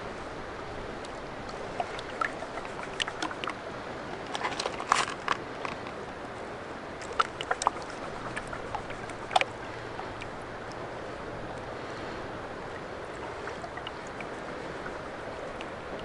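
Plastic gold pan dipped and swirled in a shallow pool: water sloshing and splashing, with a run of sharp clicks and splashes during the first ten seconds, then only a steady wash of water.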